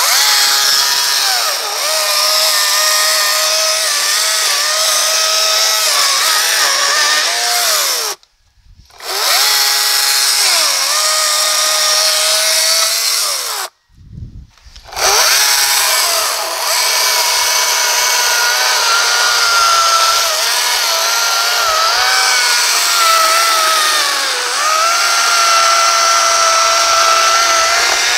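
Greenworks 40V cordless electric chainsaw cutting through a log, its motor whining with the chain, the pitch sagging and recovering as the bar loads in the wood. The saw stops twice, about eight seconds in and again near fourteen, and starts again about a second later each time.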